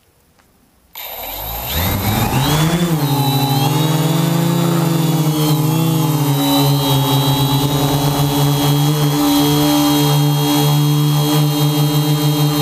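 Quadcopter's electric motors and propellers spinning up from rest about a second in, rising sharply in pitch. The drone takes off with a few wobbles in pitch, then settles into a loud, steady hum in flight, heard close from the camera on board.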